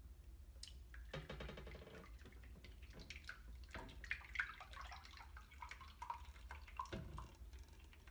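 Thick liquid flan batter poured from a glass bowl into a caramel-lined mold, making a faint, irregular splashing pour that starts about a second in.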